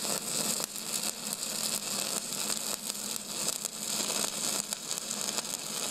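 Steady crackling hiss with irregular pops and a low hum underneath.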